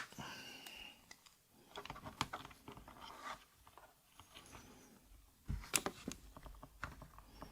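Small plastic clicks and scrapes of a mechanical keyboard switch being worked at in its hot-swap socket, stuck and resisting removal, with a soft thump about five and a half seconds in.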